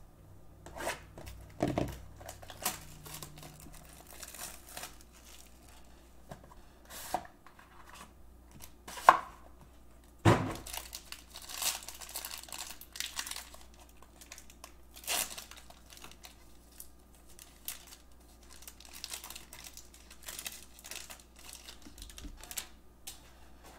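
Foil wrapper of a Panini Origins basketball card pack being torn open and crinkled, with scattered rustles and clicks of packaging and cards being handled; the sharpest snaps come about nine and ten seconds in.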